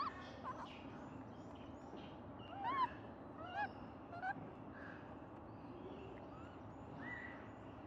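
Japanese macaques giving coo calls: short, clear calls that rise and then fall in pitch, the loudest a cluster about three to four and a half seconds in, with fainter ones near the start and near the end.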